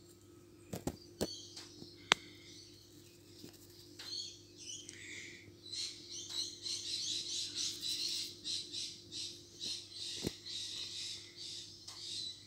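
A small bird chirping and twittering in quick repeated notes from about four seconds in, over a steady low hum. A few sharp clicks come in the first two seconds.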